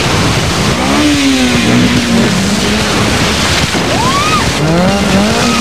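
Car engine revving hard, its pitch rising and falling as it speeds up and slows, with short tyre squeals in the second half as the car is thrown through turns.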